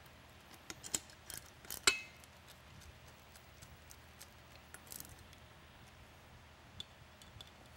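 Screwdriver tightening screws through a steel speaker mounting bracket: scattered small metallic clicks and ticks, with one sharp metal click about two seconds in that rings briefly.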